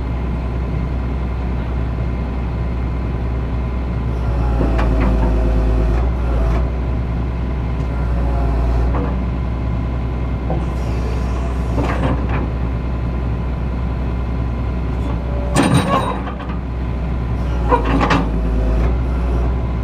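Excavator engine running steadily, its note rising and straining twice as it takes load, with several sharp metal clanks in the second half.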